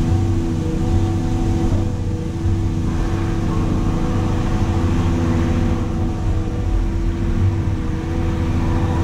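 Caterpillar excavator's diesel engine and hydraulics running steadily, heard from inside the operator's cab as the machine moves, with a low rumble and a steady held tone above it.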